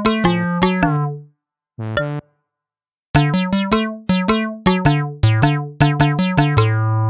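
Background music: a light tune of short, quickly fading keyboard-like notes, which pauses about a second in and then starts again with quicker notes.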